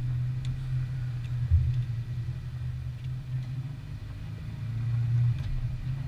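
ATV engines idling steadily, a low even hum with no revving.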